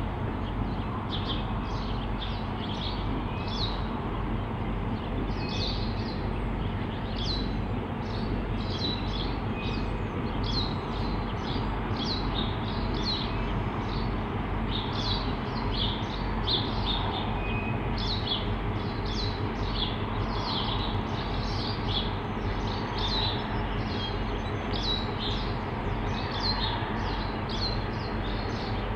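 Small birds chirping over and over, over the steady low rumble of EMD G22AR diesel locomotives moving slowly at low power.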